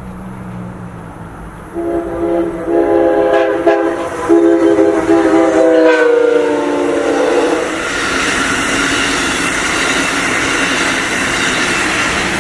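Amtrak locomotive's multi-chime air horn sounding a few blasts, the last one long, its chord dropping in pitch as the train passes. Then the train rushes by with steady wheel and rail noise.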